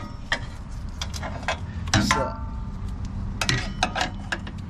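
Irregular metallic clicks and clinks of sway-bar mounting hardware (bolts, washers, nuts) and the steel bar being handled and fitted.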